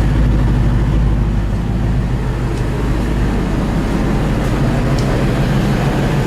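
1998 Ford Expedition's 5.4 V8 running steadily through a straight-piped exhaust with no mufflers.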